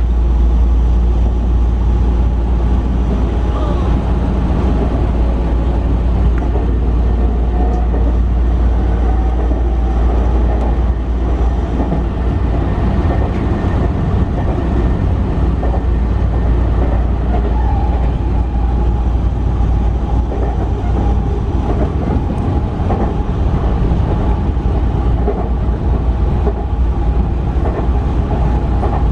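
Sotetsu commuter train running steadily along the line, heard from inside the front car: a constant low running noise of wheels on rail with a faint steady motor whine.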